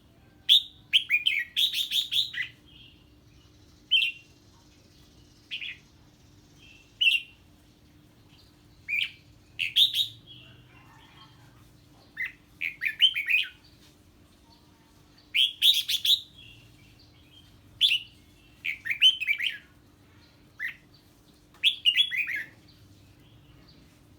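Red-whiskered bulbul singing: short, loud bursts of quick chattering notes, repeated about a dozen times with pauses of a second or two between them.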